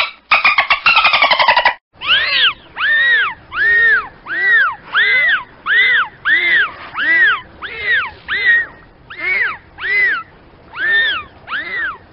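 Dolphin calling: a buzzing burst of rapid clicks, then, about two seconds in, a string of about fifteen repeated whistles, each rising and then falling in pitch, about two a second.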